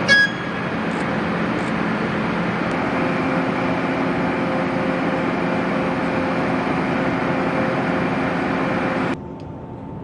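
Steady, loud jet engine noise, with a brief loud high squeal right at the start. About nine seconds in the noise cuts off suddenly to a quieter hum carrying one steady tone.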